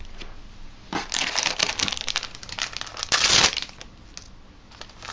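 Crinkling of a shiny trading-card booster pack wrapper being handled and torn open, loudest a little past three seconds in.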